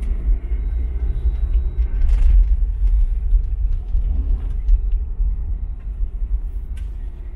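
Steady low rumble of a taxi's engine and tyres on a snow-covered road, heard from inside the cabin, with a few faint clicks.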